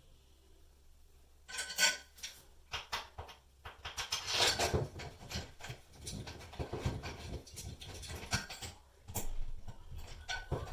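Small metal hardware, molly bolts and shelf mounting bolts, being handled and worked: irregular clinks, taps and scrapes that start about a second and a half in and go on in quick clusters.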